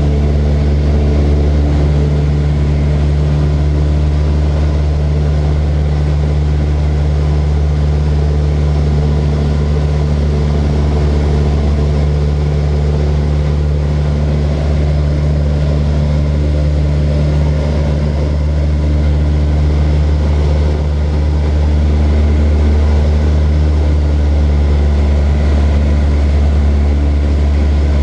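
Propeller aircraft's piston engine running steadily at constant power, a continuous low drone that grows slightly louder about two-thirds of the way through.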